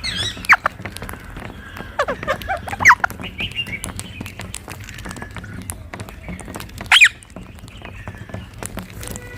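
Rose-ringed parakeets calling: sharp shrieks that fall steeply in pitch, one about half a second in, several close together around two to three seconds in, and another about seven seconds in. Fainter chatter and scattered clicks run between them.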